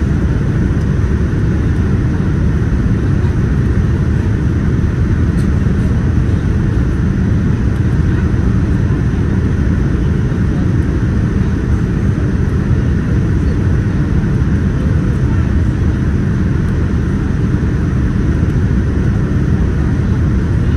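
Boeing 787-10 cabin noise during descent: the steady rumble of the engines and airflow, heard inside the cabin.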